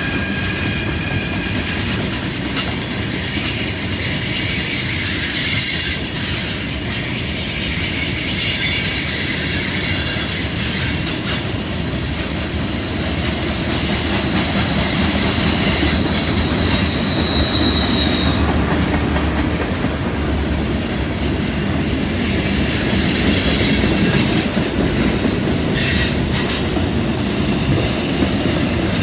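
Cars of a CN train rolling through a curve: a steady rumble of wheels on rail with some clickety-clack, and high-pitched wheel flange squeals that come and go, from the wheels grinding against the rail on the curve.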